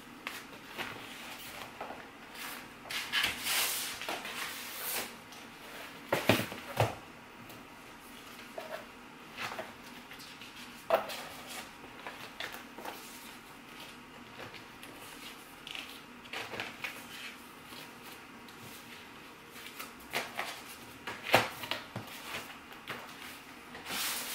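Paper sticker sheets being handled and sorted by hand: rustling and flicking of the sheets, with a few sharp taps and knocks scattered through.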